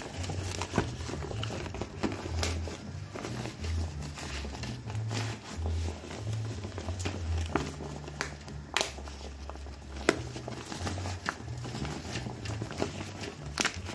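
Bijao leaves crinkling and crackling as hands press and tuck them down over a pot to cover it, with many irregular sharp crackles.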